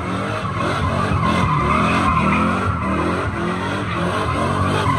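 Pickup truck doing a burnout: the engine held at high revs, rising and falling, while the rear tyres spin and squeal on the concrete. This heats the tyres before a drag-race launch.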